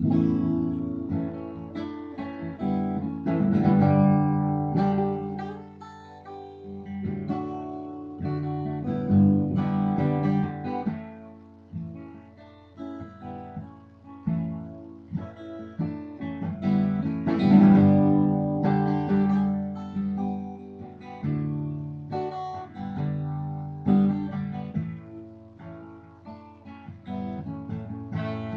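Acoustic guitar strummed in a run of chords, the playing swelling and easing in strength.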